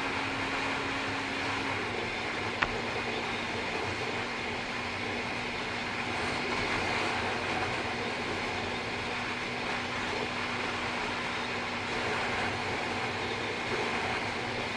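Wind rushing over an action camera's built-in microphone on a moving Bajaj Pulsar NS200, with the bike's single-cylinder engine drone as one steady low note that drops slightly in pitch about two seconds in. A single sharp click sounds shortly after.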